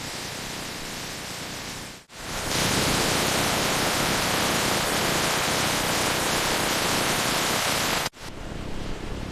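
Steady factory machinery noise, an even rushing hiss with no distinct rhythm or clicks. It breaks off about two seconds in, comes back much louder for about five seconds, then cuts down suddenly to a quieter hiss near the end.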